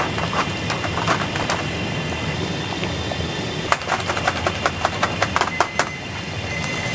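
Commercial noodle boiler running with a steady kitchen hum, while utensils knock against the stainless-steel mesh noodle baskets in a quick run of sharp clicks and taps just past the middle.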